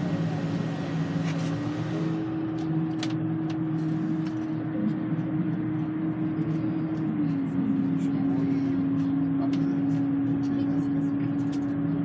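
Bus cruising at highway speed, heard from inside the cabin: a steady engine and drivetrain drone over road noise. It carries a constant hum that steps up slightly about two seconds in and drops back about seven seconds in.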